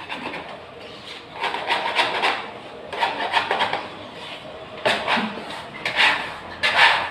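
Wet wallpaper backing being rubbed and peeled off a wall by hand: several short bursts of scraping and tearing paper.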